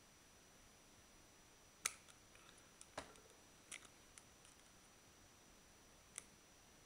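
Faint, scattered small clicks and ticks of needle-nose pliers working against the small metal and plastic parts of an electric shaver's head, about five over the few seconds with quiet between them.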